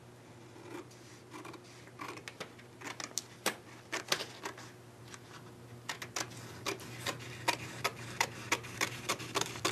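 Scissors snipping through a vinyl decal's paper backing: a series of short, crisp snips starting about two seconds in and settling into about three a second.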